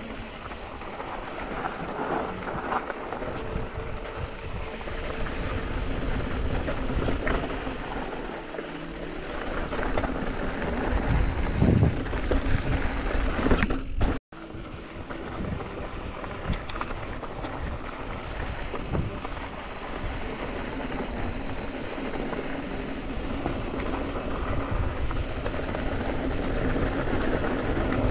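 Yeti SB165 mountain bike riding down a dry dirt and gravel trail: tyres rolling and crunching over loose rock, with knocks and rattles from the bike over bumps and steady wind rushing across the microphone. The sound cuts out for an instant about halfway through.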